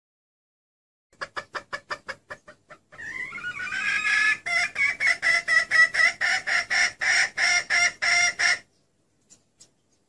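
Female red junglefowl clucking: a quick run of short clucks that fade away, then a longer loud cackle of evenly spaced clucks, about four a second. This is a hen's call that draws cock junglefowl.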